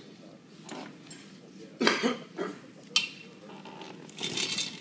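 Metal buckles and D-rings of a safety body harness clinking and rattling as it is handled and put on, with the sharpest clank about two seconds in, another about a second later, and a short rattle near the end.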